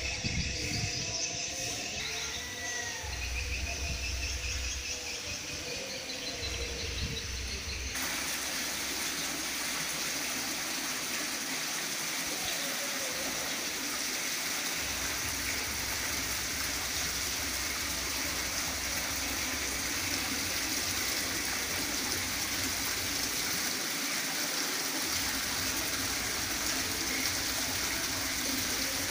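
Water from an indoor artificial rockery waterfall pouring and splashing steadily into its pond. It starts abruptly about a quarter of the way in and stays even throughout.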